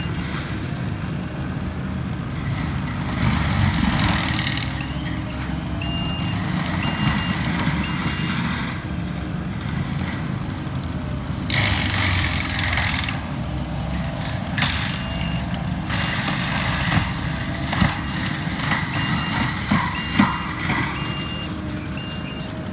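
Kubota compact track loader with a forest mulcher head working, its diesel engine a steady low drone under load, with several rough grinding stretches of about a second as the mulcher chews into a tree. A reversing alarm beeps in short runs as the machine backs up.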